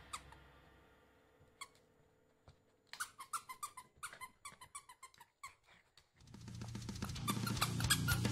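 Small dogs playing tug with a plush toy: a quick run of faint, short, high squeaks. Background music fades out at the start and comes back in near the end.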